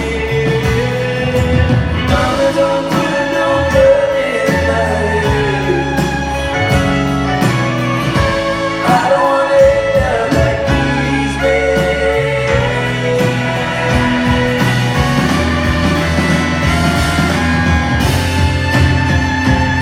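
Live band playing, with voices singing over a full bass and a steady drum beat.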